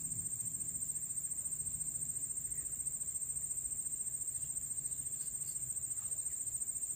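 Steady, high-pitched insect trill that pulses rapidly without a break.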